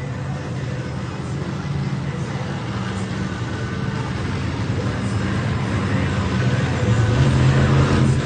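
Monster truck engine running, growing steadily louder over the last few seconds.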